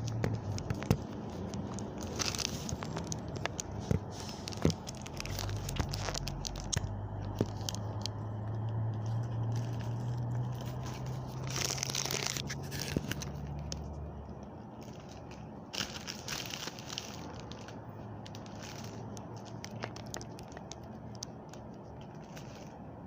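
Plastic packaging crinkling and rustling with scattered clicks and light knocks as food is handled and unwrapped, with a steady low hum through the middle few seconds.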